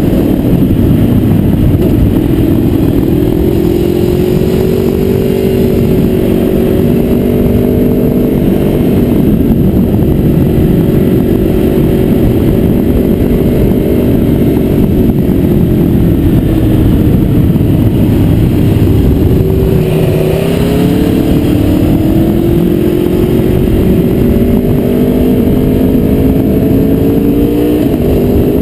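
Aprilia Tuono V4R's V4 engine heard onboard while riding, its note rising slowly, holding steady, then dipping sharply about twenty seconds in before climbing again, over a steady rush of wind on the microphone.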